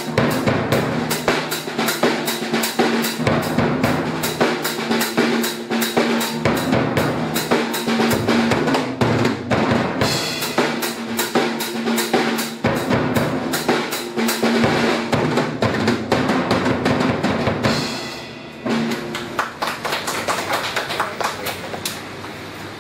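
Chancellor acoustic drum kit played solo, with bass drum, snare and toms struck in quick, dense strokes. It briefly drops off about 18 seconds in, then goes on more quietly through the last few seconds.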